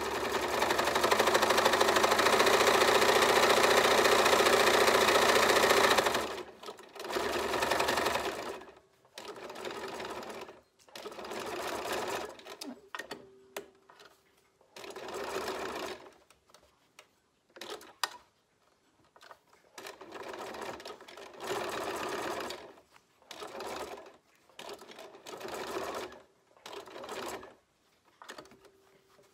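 Bernina 440 QE electric sewing machine stitching through a thick coiled fabric rope. It runs steadily for about six seconds, then goes in short start-stop bursts of a second or two with brief pauses between them as the coil is guided around its curve.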